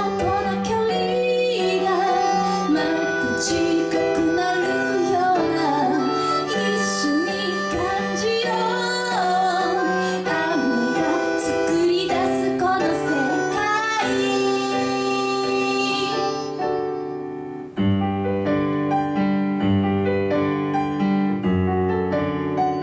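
Live pop song: a female voice sings a wavering melody over piano or keyboard chords and bass. About three-quarters of the way through, the voice and the high end drop out after a brief dip, and the keyboard plays on alone.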